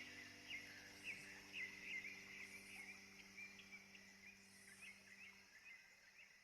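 Faint chirps of small birds, about two a second, over a faint steady hiss, all fading out gradually.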